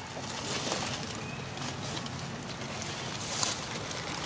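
Outdoor ambience: birds calling faintly, with scattered light rustles and clicks, the sharpest about three and a half seconds in.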